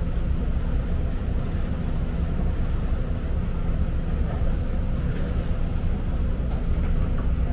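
Steady low rumble and hum inside a BART train car standing at an underground platform with its doors open, with a few faint clicks about five seconds in.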